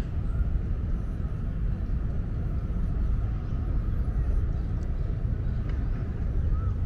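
Steady low rumble of city traffic and outdoor ambience, with a few faint short chirps.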